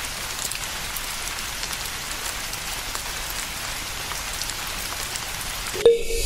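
Water showering onto a miniature sand seedbed: a steady, rain-like patter of drops that stops shortly before the end.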